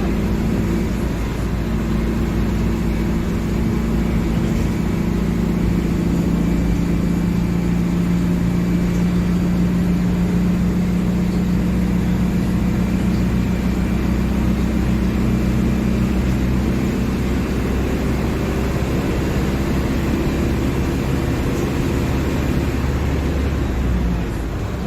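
Diesel engine of a Mercedes-Benz OF-1721 BlueTec 5 bus running steadily, its pitch drifting slightly up and down with engine speed.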